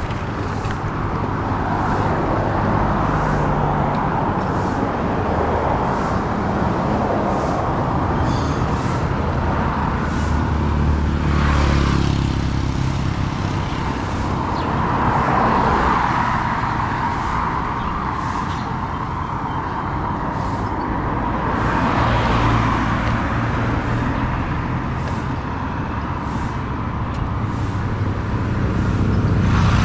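Steady road and vehicle noise while travelling along a road: a low engine hum under a rushing haze, swelling louder several times.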